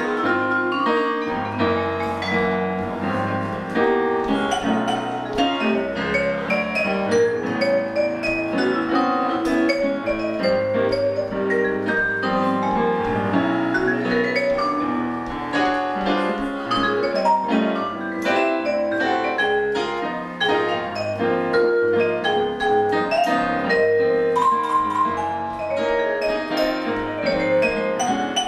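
Jazz duo of a Roland FP-4 digital piano and a Musser vibraphone playing together: a steady stream of piano chords and mallet-struck vibraphone notes that ring on.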